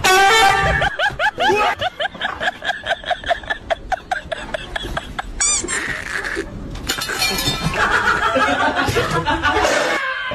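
Laughter sound effect dubbed over the skit: a long run of short rising 'ha' syllables that slows over the first few seconds, then a short clinking crash about halfway through, followed by more laughing.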